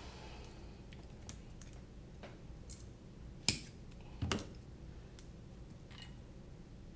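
Scattered small clicks and taps of hands handling drone frame parts and a roll of double-sided tape on a silicone work mat, with two louder knocks about halfway through.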